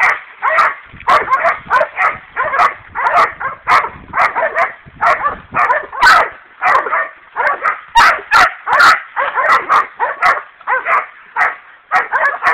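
Dogs barking over and over, loud and steady, about two barks a second.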